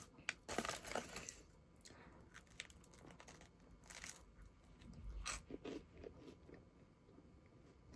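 A person eating close to the microphone: faint, irregular chewing and biting with small crunches.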